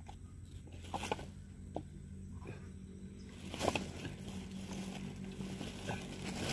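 A few scattered knocks and clatters of split coconut halves being picked up and handled while copra is being made, the loudest just past halfway, over a steady low hum.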